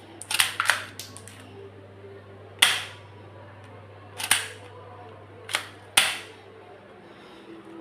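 Sharp cap-gun-like cracks from a gold Desert Eagle pistol being fired. There is a quick run of three near the start, then single shots every second or so.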